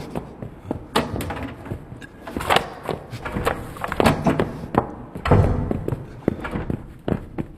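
An irregular run of thumps and knocks, with a heavier, denser stretch about five seconds in.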